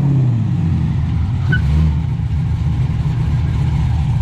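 Pontiac GTO's cammed 6.0 L LS2 V8 running steadily, its exhaust note coming through Kooks headers and mid-pipes.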